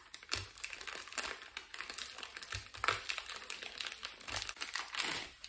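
Plastic wrapper of a 2-in-1 foam scrub pad being pulled open by hand: irregular crinkling and crackling throughout, with a few soft handling bumps.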